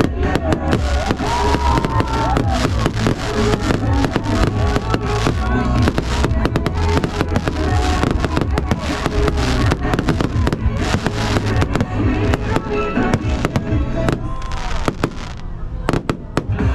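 Fireworks bursting in quick succession, a dense run of bangs and crackles, over loud music with singing.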